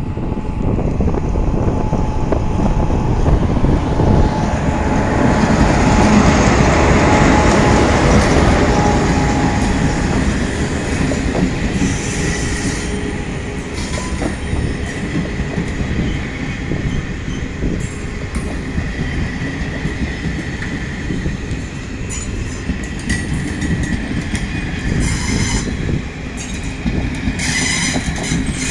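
Moroccan ONCF electric locomotive E-1261 hauling a passenger train past at speed. Its rumble swells to a peak as the locomotive goes by in the first third, then settles into a long steady rumble of coaches rolling past, with wheel clatter and a faint high wheel squeal.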